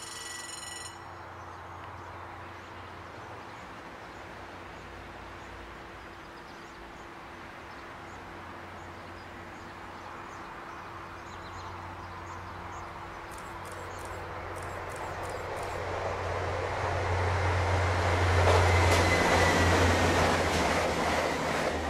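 Bombardier AGC regional train approaching along the line. Its running noise and low hum grow steadily louder and are loudest near the end as it passes close by, with a short falling whine at the peak.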